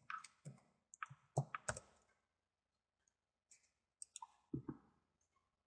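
Faint clicks of computer keyboard keys and a mouse, coming in short clusters with pauses between them.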